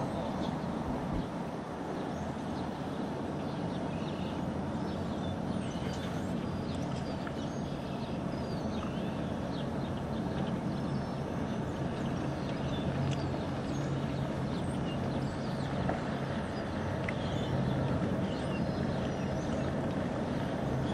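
Steady low rumble of outdoor background noise, with faint, short bird chirps scattered throughout.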